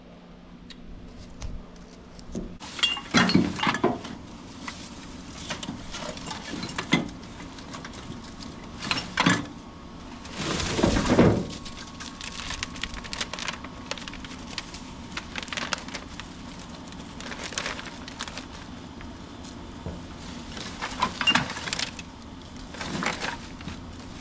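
Intermittent clatter, knocks and clinks of hard junk and parts being handled and tossed aside, with a longer scraping rush about eleven seconds in.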